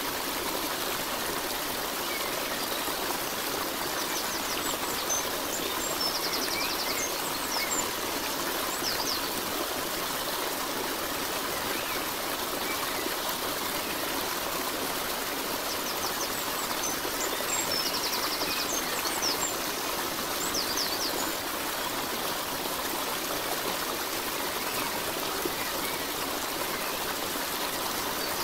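Steady rush of flowing water, like a stream, with faint high chirps in two matching clusters about thirteen seconds apart.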